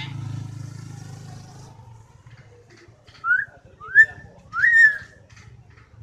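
Caged hill myna giving three loud whistles about two-thirds of a second apart, each swooping up in pitch and levelling off. A passing motorcycle hums and fades away over the first two seconds.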